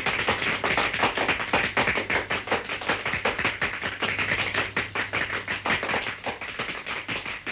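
A dense, irregular run of quick taps and clicks, many a second, with no tune, easing slightly near the end.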